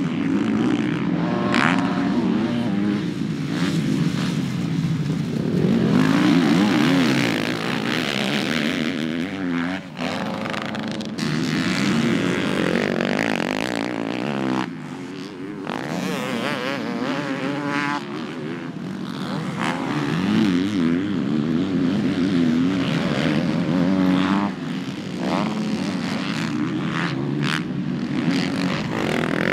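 Several motocross dirt bikes racing past, their engines revving up and down as riders work the throttle through turns and jumps. The engine sound changes abruptly a couple of times where the footage cuts between clips.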